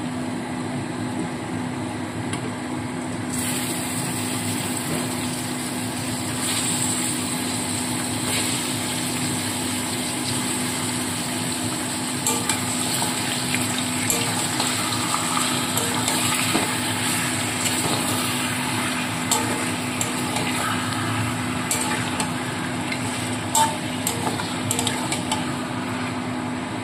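Onions sizzling in hot oil in a wok, the sizzle growing louder about three seconds in as raw mutton pieces go in. A metal spatula then scrapes and clicks against the wok as the meat is stirred and fried, over a steady low hum.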